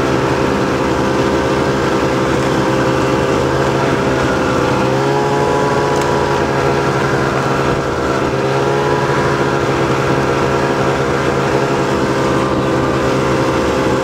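Snowmobile engine running steadily while under way, its pitch dipping briefly and coming back up about five seconds in.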